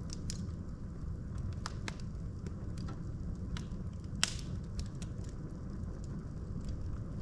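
Logs burning in a fireplace: a steady low rumble of the flames with scattered sharp crackles and pops, one louder pop about four seconds in.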